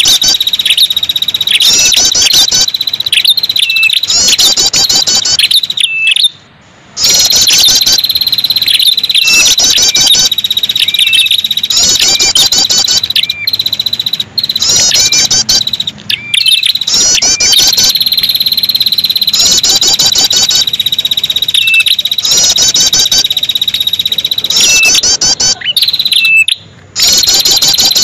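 Bird-lure recording of ashy tailorbird (prenjak kepala merah) calls. Bouts of rapid, high trills repeat every couple of seconds with short chirps between them, over a loud, steady insect buzz. The sound cuts out briefly twice, about six seconds in and near the end.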